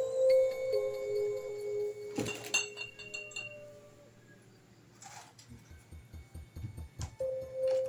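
Eerie ambient horror music: sustained ringing tones that fade out midway and return near the end, with a sharp knock-like hit about two seconds in and a few faint taps.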